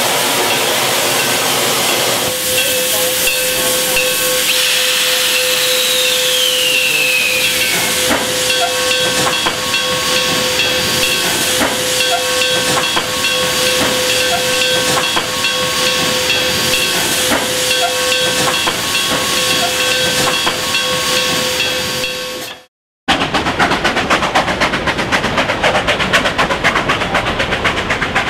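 Durango & Silverton K-36 2-8-2 narrow-gauge steam locomotive No. 480 hissing steam, with a steady tone and a brief falling tone a few seconds in, then regular knocks about once a second as it moves off. Near the end the sound cuts out briefly and gives way to a fast, even clatter.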